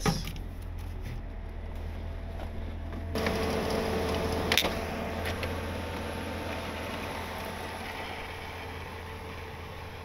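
Grey Dodge Ram pickup's engine idling with a steady low hum. It grows louder about three seconds in, with a steady whine over it that fades off towards the end. A single sharp click comes about halfway through.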